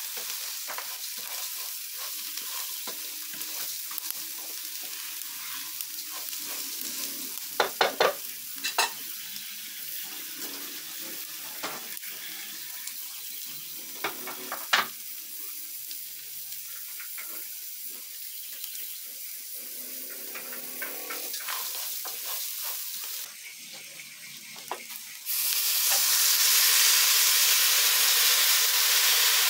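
Raw rice frying in oil in an aluminium pot, a steady sizzle with a spoon stirring and scraping, and a few sharp knocks of metal on the pot. About 25 seconds in, water poured from a kettle hits the hot rice and the sizzle suddenly becomes a much louder steady hiss, the start of the rice's cooking stage.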